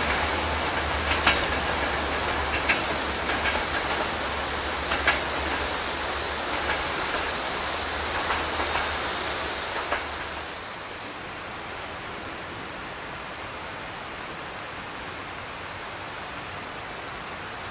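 Passenger train's wheels clicking over rail joints as the coaches pull away into a tunnel, the clicks growing fainter, over a steady hiss of rain. After about ten seconds the train sound stops and only the rain hiss remains.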